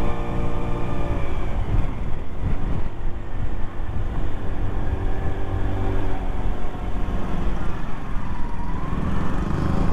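Lexmoto Echo 50cc moped engine running along the lane. Its pitch drops about one and a half seconds in as it eases off, then runs steadily lower. A heavy wind rumble sounds under it.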